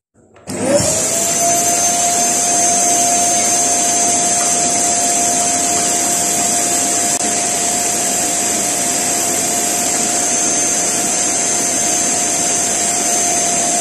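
A vacuum cleaner switches on about half a second in. Its motor spins up quickly to a steady pitch with a high whine, then runs steadily as the hose sucks built-up dust off a dismantled tower fan.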